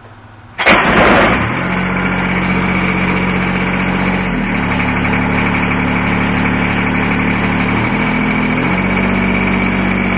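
Kubota D722 three-cylinder water-cooled diesel on a riding mower starting from cold after months of sitting: it catches almost at once with a loud burst about half a second in, then settles into a steady idle. The idle speed shifts briefly twice, a few seconds in and near the end.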